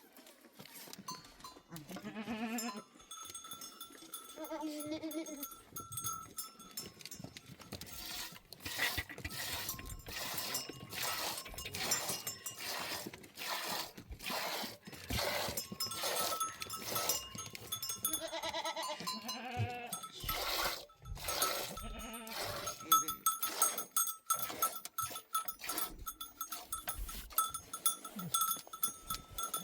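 Bells on a flock of sheep jingling and clanking as the animals move, with a few bleats about two, four and nineteen seconds in.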